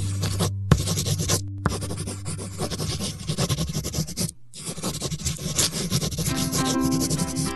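Felt-tip marker scratching across paper as lines are drawn, cutting out briefly three times, over background music.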